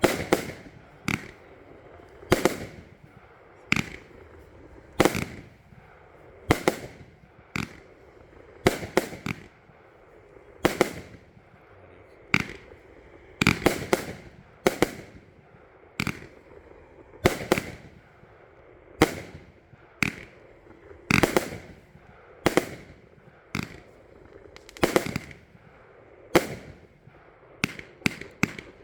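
Firework compound of mine tubes (J-Fireworks Miner A-B-C-D) firing tube after tube: a sharp bang roughly every one and a half seconds, each with a brief ringing tail.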